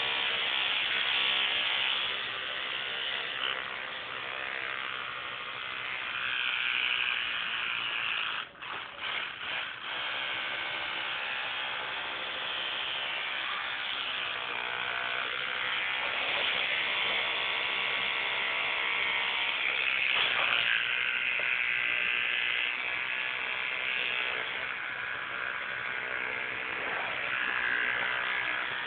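Electric toothbrush running with a steady buzz, its tone shifting as it is handled and held to the mouth. It cuts out briefly a few times about eight and a half seconds in, then runs on.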